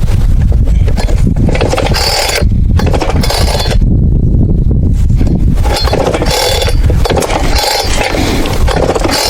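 Husqvarna 455 Rancher two-stroke chainsaw being pull-started: repeated bursts of the engine turning over as the recoil cord is pulled, over a constant low rumble. This is a new-to-the-owner saw that takes many pulls to start.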